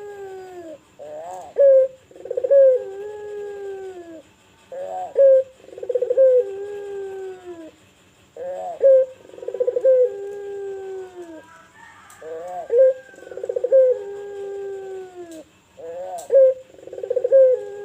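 A puter dove (Barbary or ringneck dove) cooing its song five times, about every four seconds: each phrase is a short rising note and a rolling coo, ending in a long falling coo.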